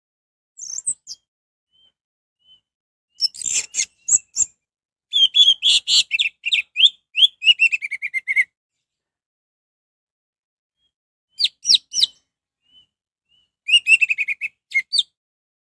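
Orange-headed thrush singing: bursts of rapid, varied, sharp whistled notes separated by short pauses. The longest phrase, in the middle, ends in a quick run of notes falling in pitch, and a few soft single notes fall in the gaps.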